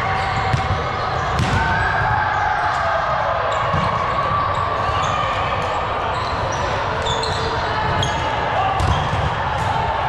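Indoor volleyball game in an echoing gym: many sharp ball strikes and thuds at irregular intervals, with players' voices in the background.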